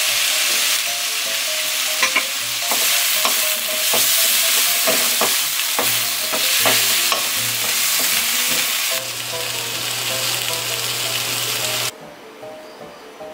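Zucchini, onion and chili sizzling as they are stir-fried in a nonstick pan, with the spatula scraping and knocking against the pan now and then. The sizzle cuts off sharply near the end, leaving soft background music.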